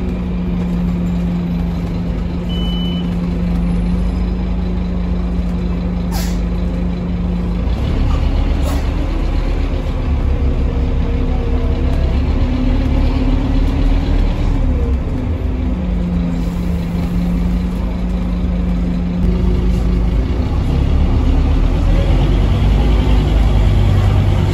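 Scania OmniCity bus engine and driveline running, heard inside the passenger cabin: a deep rumble with a steady whine that climbs in pitch as the bus picks up speed about eight seconds in, levels off, and climbs again louder near the end. A brief sharp click about six seconds in.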